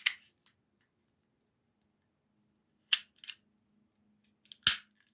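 Metallic clicks from a Glock 26 pistol being worked for takedown of the slide: two small clicks about three seconds in, then one loud, sharp click near the end.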